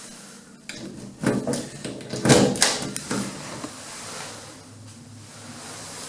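Passenger lift car travelling down: a few clunks and rattles in the first three seconds, then a steady low hum.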